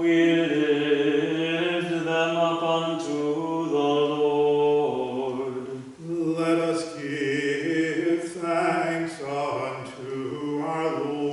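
A single man's voice chanting unaccompanied, holding long steady notes in a slow melody, with a brief break about six seconds in.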